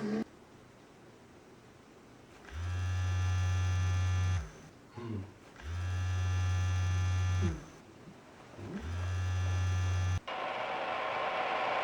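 Fire department pager going off with three long buzzes, each about two seconds, the alert before the dispatch message. A hiss starts suddenly near the end.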